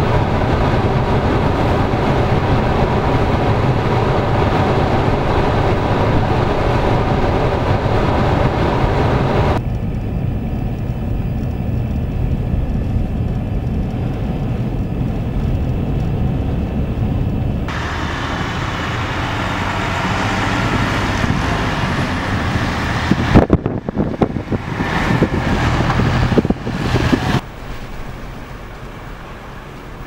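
Blizzard wind rushing over the microphone with the low, steady running of a nearby vehicle engine, over several shots that change abruptly. Loud, uneven buffeting comes about three quarters of the way through.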